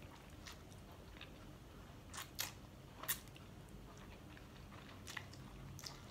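A person eating instant ramen noodles off chopsticks: faint slurping and chewing, with a few short sharp mouth sounds about two, three and five to six seconds in.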